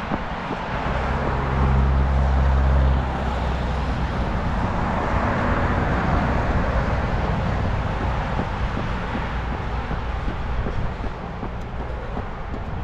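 Road traffic passing close by. A vehicle's low engine hum swells about a second in and drops away at about three seconds, then tyre and road noise rises and slowly fades.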